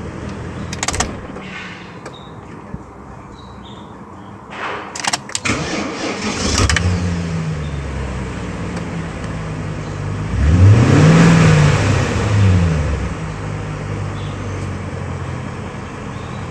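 BMW car engine idling steadily, revved up and back down briefly once and then a second time, louder, near the end. A few sharp knocks come early.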